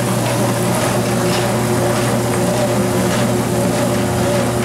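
Treadmill drive motor and belt running steadily: a constant hum with a steady whine above it and a slightly wavering higher tone.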